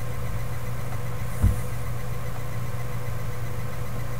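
A steady low electrical hum with a faint steady tone above it, broken once by a single dull thump about one and a half seconds in.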